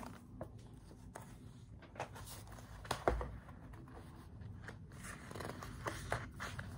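Paper pages of a picture book being handled and turned: soft rustles and small clicks, with one low thump about three seconds in.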